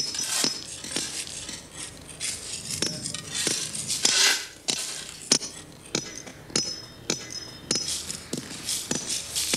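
Metal ice picks and a hammer chipping at ice, with irregular sharp strikes several times a second, each with a high ringing clink. A longer shovel scrape across the ice comes about four seconds in.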